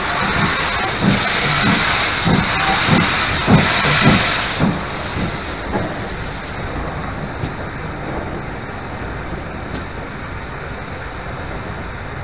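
GWR King-class 4-6-0 steam locomotive No. 6023 'King Edward II' moving slowly with its cylinder drain cocks blowing. A loud steam hiss with low beats a little under two a second stops sharply about four and a half seconds in, and the quieter running of the engine carries on.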